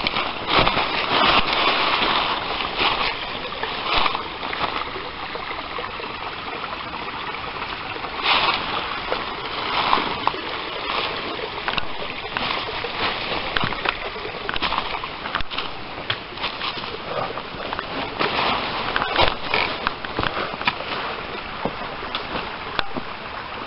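Footsteps crunching and rustling through dry fallen leaves and twigs on a stony streambed, in irregular crackling strokes over a steady hiss.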